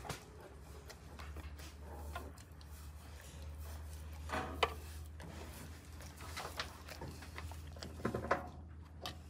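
Quiet room with a steady low hum, and a few brief soft sounds from sleeping newborn Akita puppies stirring: one about four and a half seconds in, and more near the end.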